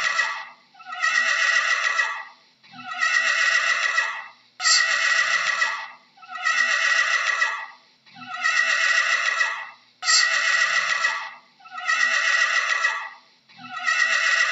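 A horse whinnying again and again, about eight calls, each starting high and falling in pitch, one every two seconds or so.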